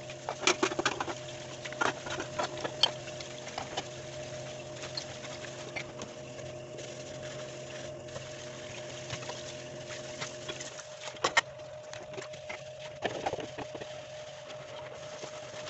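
Dishes, cups and pans clinking and knocking while being washed by hand at a kitchen sink, with the tap running, over a steady mechanical hum. The sharpest knocks come in the first few seconds and again about eleven seconds in.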